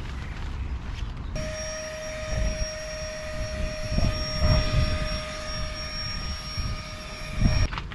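Wind gusting hard on the microphone in low rumbles. A steady hum of several even tones with a hiss cuts in about a second and a half in and stops abruptly near the end.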